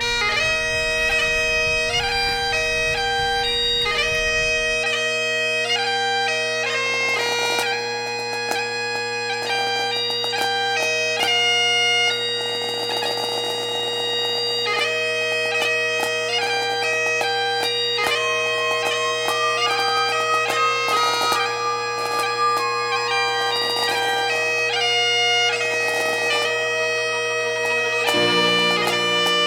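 Music: a quick melody played over steady, unbroken drone notes.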